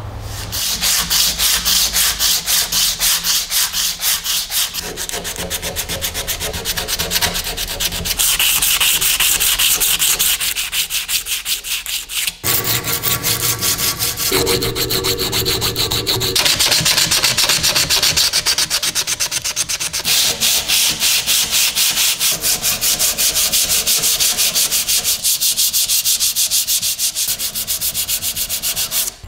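Metal stapler parts being filed and sanded by hand: quick back-and-forth rasping strokes of a hand file and then of an abrasive strip on bare metal, in several short sections whose tone changes abruptly at each cut.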